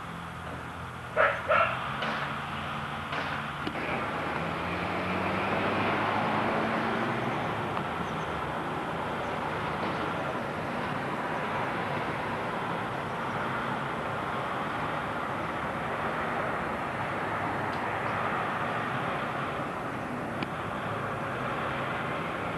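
Steady outdoor background noise with a motor vehicle engine running, rising in pitch over the first few seconds, and two short sharp sounds about a second in.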